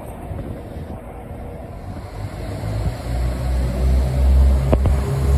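Northern Class 195 diesel multiple unit alongside the platform, its underfloor diesel engine rumbling, the deep rumble swelling about halfway through. A couple of sharp clicks near the end.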